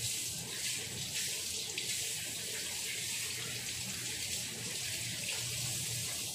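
Covered pan of pumpkin and leeks simmering on a lit gas burner: a steady hiss with faint crackles.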